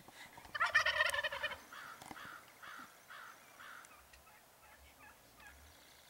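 Wild turkey tom gobbling once, loud and rattling, for about a second starting half a second in, followed by a run of about six shorter yelps at an even pace.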